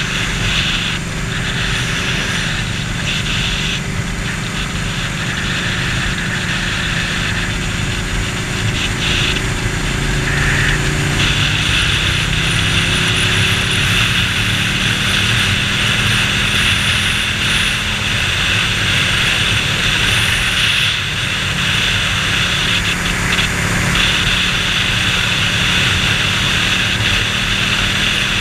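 Ducati 1299 Panigale's L-twin engine running under way, rising in pitch as the bike accelerates in the first half and then holding steady, with wind rush over a helmet-mounted microphone.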